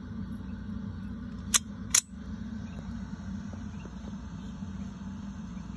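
Two sharp clicks about half a second apart, about a second and a half in, over a steady low hum.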